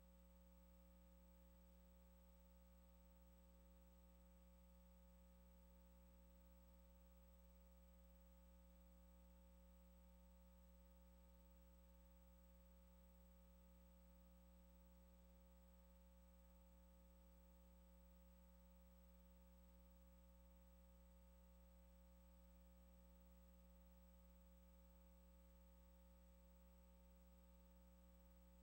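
Near silence: only a faint, steady electrical hum with a low hiss on the recording line.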